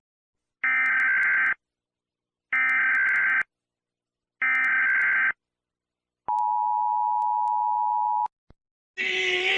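Emergency Alert System tones: three bursts of about a second each of buzzing digital data tones (the SAME header), evenly spaced, followed by the steady two-tone attention signal for about two seconds. These mark the start of a new alert.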